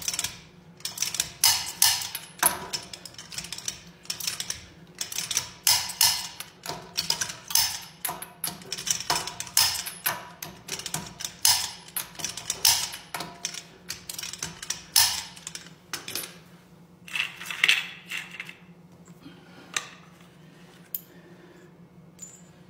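Irregular sharp metallic clicks and clanks of hand tools and parts being handled during a tyre job, about one to two a second and sometimes in quick runs, over a faint steady low hum. The clatter thins out after about 16 seconds.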